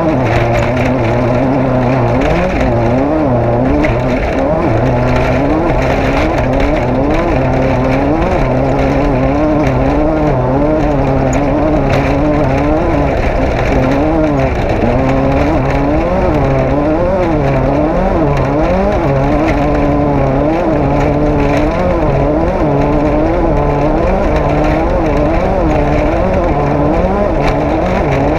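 Off-road race car's engine being driven hard, its note rising and falling about once a second as the throttle is worked on and off.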